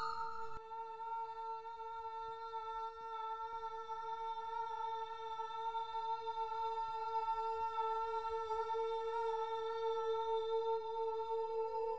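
A sustained musical drone: one steady tone with a stack of overtones, held without a break, growing a little louder and rising slightly in pitch near the end.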